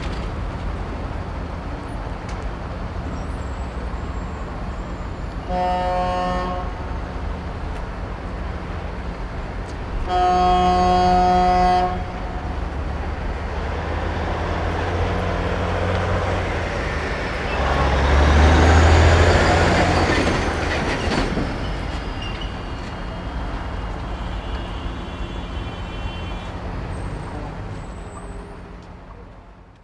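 City street traffic noise, with a vehicle horn sounding briefly about six seconds in and again, longer and louder, about ten seconds in. A louder vehicle passes close about eighteen seconds in, and the traffic fades out at the very end.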